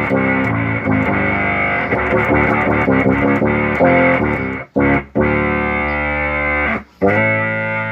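Electric bass played through an Electro-Harmonix Bass MicroSynth pedal, a run of synthesized notes with strong sustained overtones, the pedal working again after its power supply and signal chips were replaced following an 18 V overvoltage. The sound cuts out briefly twice, a little past halfway and near the end.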